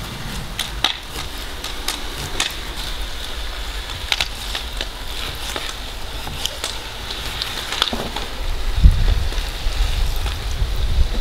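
Chef's knife slicing a raw fish fillet into strips on a wooden cutting board, the blade tapping the board in irregular sharp taps. Under it runs a steady hiss and a low rumble that grows louder near the end.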